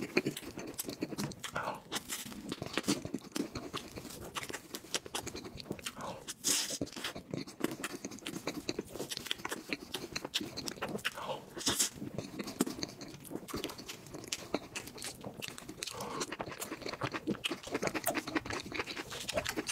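Close-miked eating sounds of someone chewing soft cream cake with fruit: continuous wet chewing and small mouth clicks, with a few louder noisy bursts.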